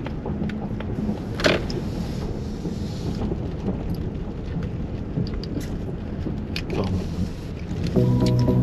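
Car cabin noise as the car rolls slowly across a wet gravel parking lot: a steady low rumble with scattered clicks and ticks, one louder click about a second and a half in. Music fades in near the end.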